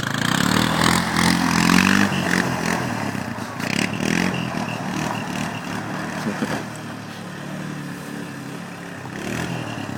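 Small utility vehicle's engine running, loudest for the first two seconds and then easing off to a steady lower drone, with a few light knocks and rattles.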